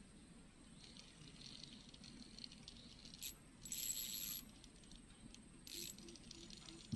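Faint rattling of a small spinning fishing reel being wound, in three short bursts, the longest about a second long near the middle.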